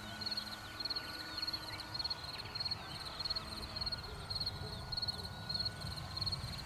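Field crickets chirping in a fast, even rhythm of about three high chirps a second. Under them runs a faint steady whine from the RC model plane's motor and propeller flying high overhead.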